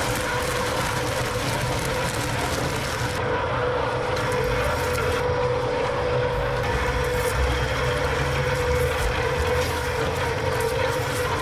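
A large engine running steadily, with a constant whine over it.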